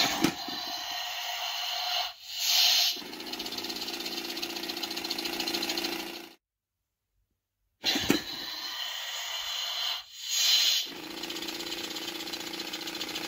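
Spirit Halloween striking snake animatronic prop running its snake sound effect through its small speaker, twice. Each time there is a sudden start, a hiss about two seconds in, then a buzzing rattle for about three seconds that cuts off, with a second and a half of silence between the two runs.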